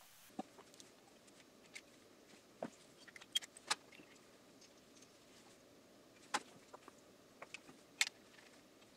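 Scattered small metallic clicks and clinks of motorcycle engine parts being handled by hand at the cylinder, over faint room hiss; the sharpest clicks come about three and a half, six and a half and eight seconds in.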